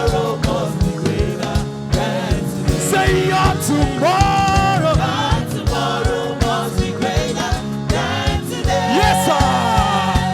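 Gospel song: a singer's lines over a band with a steady drum beat.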